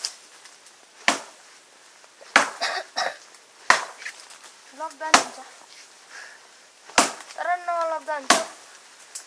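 Chopping: a blade comes down hard on a wooden board about nine times at uneven intervals. A short pitched voice sound comes midway, and a longer wavering one about three-quarters of the way through.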